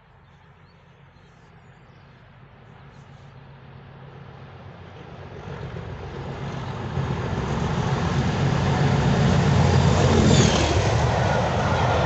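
English Electric Class 37 diesel locomotive 37403 approaching at speed and passing under power, thrashing. Its engine and wheel noise builds steadily from faint to loud and is loudest as the locomotive passes, about ten seconds in, with the passenger coaches rolling by after it.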